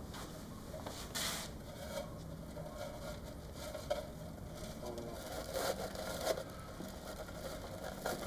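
Faint rustling, scraping and light knocks of an artificial Christmas tree's branches being handled as a topper is fitted onto its top, the sharpest knock about six seconds in.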